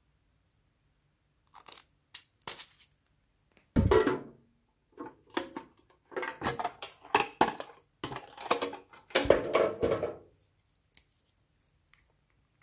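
Handling noise from a shaped metal tin box and other small containers: irregular knocks, rattles and scraping, with two heavier thumps about four and nine seconds in.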